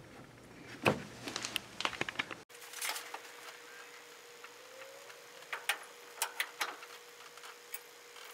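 Sparse light clicks and taps of a hand tool working inside a 1963 Chevrolet C10's steering column while the turn signal switch is fitted, over a faint steady hum.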